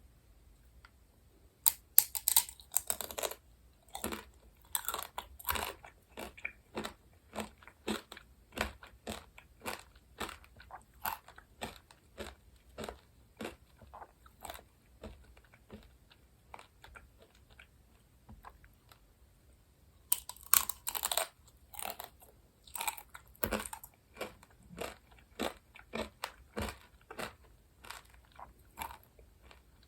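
Close-miked eating sounds: a loud crunching bite about two seconds in, then steady chewing at roughly one to two chews a second that fades out. A second crunching bite about twenty seconds in is followed by more chewing.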